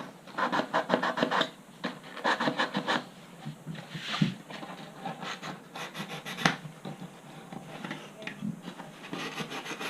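Hand sanding: abrasive paper rubbed back and forth on the model glider's parts to clean up the cut slots, in quick runs of strokes with short pauses between.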